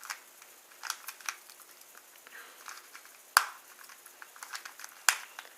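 Cheap dollar store 3x3 puzzle cube being twisted by hand: scattered clicks of its plastic layers turning, with two sharper snaps about three and a half and five seconds in. This is a cube with poor corner cutting, its layers catching as they turn.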